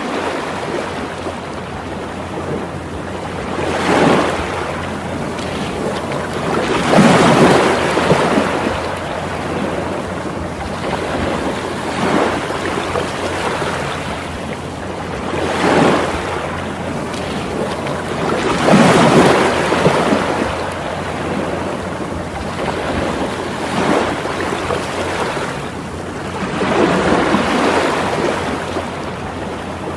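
Ocean waves washing onto a shore, a steady rush of surf that swells into a louder surge every few seconds, with a low rumble underneath.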